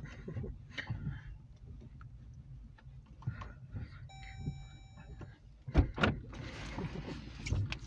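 Inside a car cabin: a steady low rumble, with the windshield wipers sweeping the rain-wet glass about four seconds in and a brief steady whine during the sweep. Two sharp knocks just before the six-second mark are the loudest sounds.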